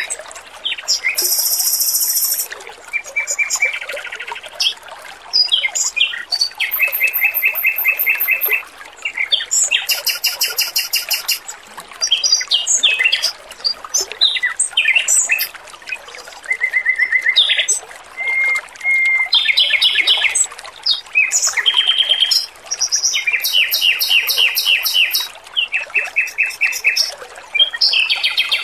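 Male Pekin robin (red-billed leiothrix) singing in rapid trilled phrases, each a second or two long with short gaps between, over a steady background of trickling water.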